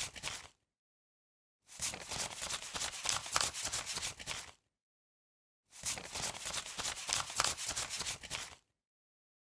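Paper banknotes being counted, a rapid papery flutter of flicked bills in bursts about three seconds long, twice in full, with a dead-silent gap of about a second between bursts.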